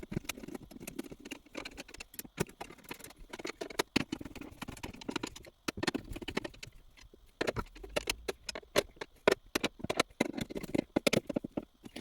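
Irregular light clicks, taps and rattles of small metal parts being handled, as the short shifter's mounting plate is fitted and its screws are set in place.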